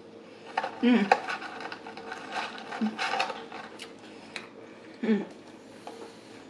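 Close-up eating sounds: chewing and wet mouth noises, with crackly rustling as French fries are pulled from their paper carton. There are a couple of short murmurs, about a second in and again near the end.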